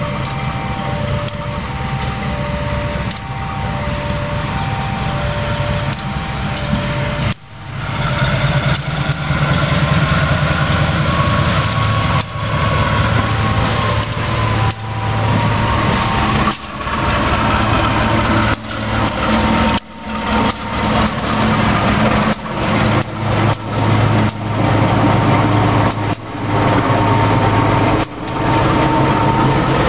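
Diesel-electric locomotive hauling a passenger train running past close by, its engine hum loud and low, followed by the coaches rumbling past on the rails. Before the locomotive arrives a two-note chime repeats about once a second, and the engine noise gets much louder about seven seconds in.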